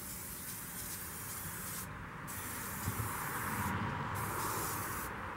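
Aerosol can of oil spraying into the steel cooking chamber of an offset smoker, coating the metal to season it. The spray runs in long bursts with brief breaks about two and four seconds in, and is strongest near the end.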